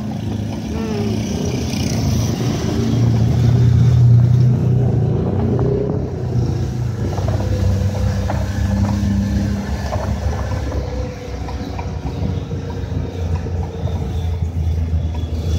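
Pickup truck's engine running and its road noise, heard from the open cargo bed as it drives; the engine swells about three to four seconds in, then runs on steadily.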